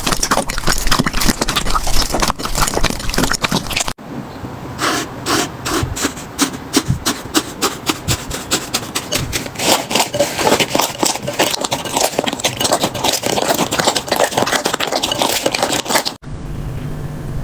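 Slime being squeezed, poked and stretched by hand, giving a dense run of crackling, popping clicks and sticky rubbing sounds. The texture changes abruptly about four seconds in and again near the end, where one clip cuts to the next.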